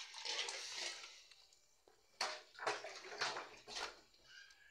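Water poured over half-cooked black-eyed peas in a pot to wash them: a rush of pouring water in the first second, then several separate splashes from about two seconds in.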